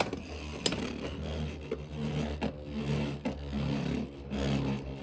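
Two Beyblade X spinning tops, Talon Ptera 3-80B and Hell's Hammer, whirring as they spin in a plastic stadium. Sharp clacks come several times as they hit each other and recoil.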